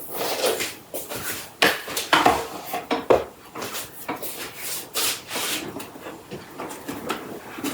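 Handling noise: packaging and parts rubbing, rustling and knocking as accessories are taken out of a box, with a few sharper knocks at uneven intervals.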